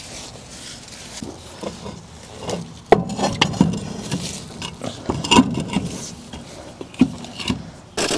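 Irregular knocks, scrapes and clanks of a rusty steel wheel being handled and fitted onto a front hub, busier and louder from about three seconds in, a few of the clanks briefly ringing.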